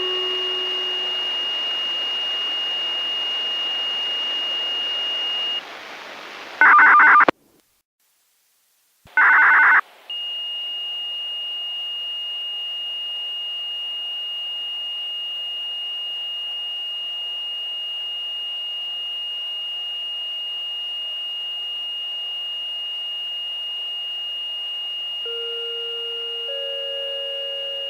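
Disaster-prevention radio broadcast channel carrying a steady high tone over hiss. About seven seconds in it is broken by two short, loud signal-tone bursts with a second or so of silence between them. Near the end, the first notes of a chime begin.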